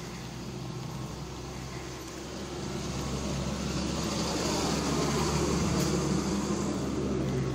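Motor vehicle engine and road noise: a steady low hum that grows louder over the second half.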